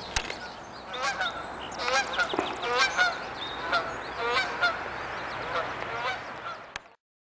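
A flock of flying geese honking, many short calls in quick succession, starting about a second in; a single click comes just before, and the sound cuts off suddenly near the end.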